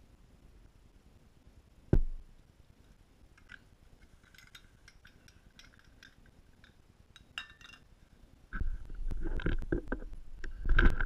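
Handling noises around a nitro RC car being fuelled: a single sharp knock about two seconds in, then faint light clinks. Near the end come louder knocks and rubbing as the fuel funnel is pulled out of the car's tank. The engine is not running.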